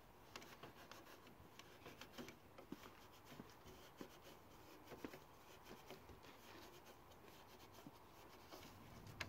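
Faint, scratchy rubbing with small irregular clicks, several a second: a cloth being wiped along the plastic slats of a BMW E39 kidney grille, working in a ceramic coating.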